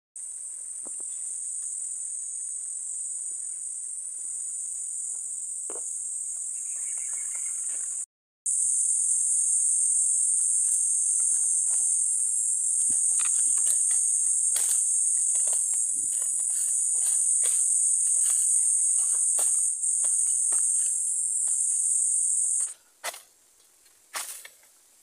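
Steady, loud, high-pitched insect buzz, such as a cicada or cricket chorus in a bamboo grove. It drops out briefly about eight seconds in and cuts off suddenly near the end. Scattered crackles of dry bamboo leaf litter sound throughout.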